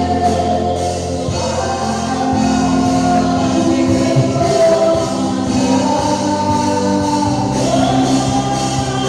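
A gospel choir singing with band accompaniment: steady bass notes underneath, and light percussion keeping the beat.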